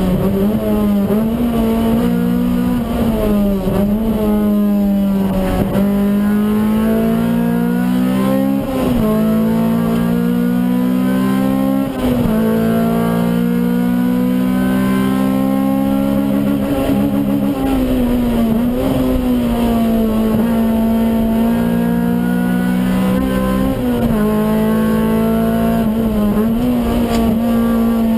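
Honda Civic EG6's standard B16A DOHC VTEC inline-four engine at full effort, heard inside the cabin. Its pitch climbs slowly and drops sharply several times as the driver changes gear and lifts for corners.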